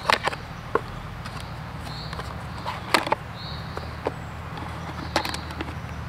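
Plastic clicks and clatter as the snap-lock lid of a plastic food container is unclipped and opened and plastic utensils are lifted out; the sharpest clicks come at the start and about three seconds in.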